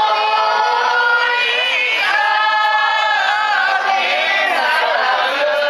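Several women singing a song together, with violins and a double bass playing along.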